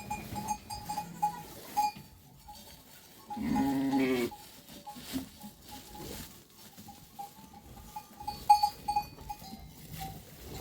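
Bells on grazing sheep and goats clinking irregularly, with one long animal bleat about three and a half seconds in.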